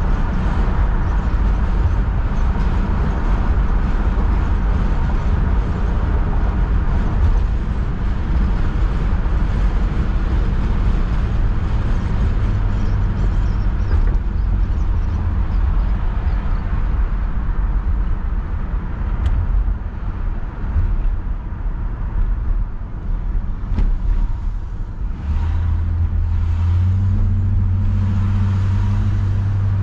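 Inside the cabin of a 1966 Ford Galaxie 500 convertible on the move: steady tyre and wind noise over the low running of its 352 V8. A steady low engine hum comes through more clearly near the end as the car slows.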